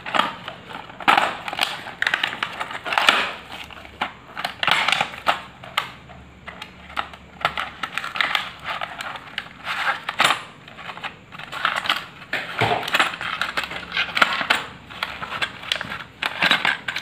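A cardboard box and clear plastic blister pack being opened and handled by hand: irregular crinkling, crackling and clicking of the packaging throughout.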